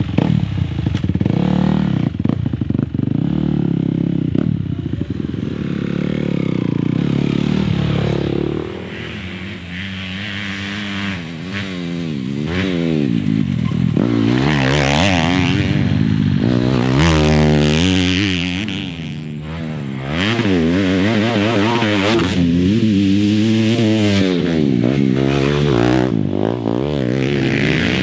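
Off-road dirt bike engines revving hard, the pitch climbing and dropping again and again as the throttle is worked. The note is steadier and lower for the first several seconds, then rises and falls sharply through the rest.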